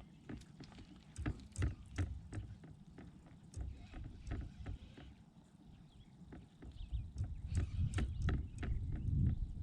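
Handling noise on a fishing kayak: scattered sharp knocks and clicks, a few each second, over a low rumble that grows louder over the last few seconds.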